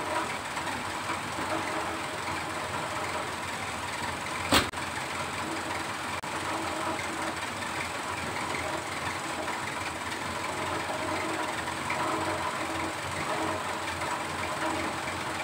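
Toyota Kijang's engine idling with a steady, even hum. A single sharp click comes about four and a half seconds in.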